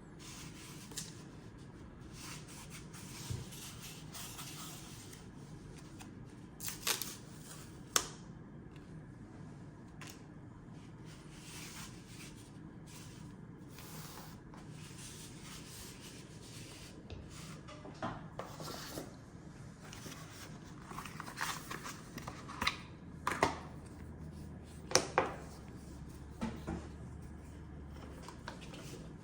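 Handling noises from unpacking a boxed product: scattered taps, rubs and rustles of cardboard and paper packaging. There are a couple of sharp clicks about a third of the way in, and a closer run of them in the last third.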